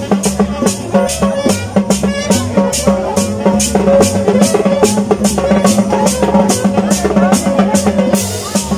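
Live band music in the open air: saxophone and other melody lines over drums keeping a steady dance beat.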